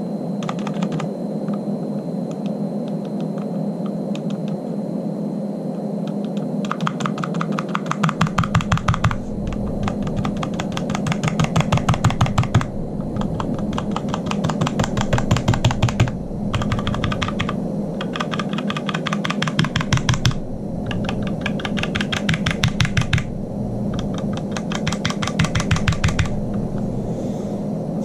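Keystrokes on a Magicforce mechanical numpad with unlubricated Cherry MX Brown tactile switches and ABS double-shot keycaps, set on a doubled mouse mat. A few scattered presses at first, then fast runs of rapid typing in bursts of one to three seconds separated by short pauses, over a steady low hum.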